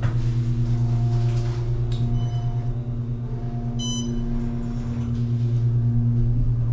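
Otis elevator car in motion: a steady low hum from the running car, with a single short electronic ding about four seconds in.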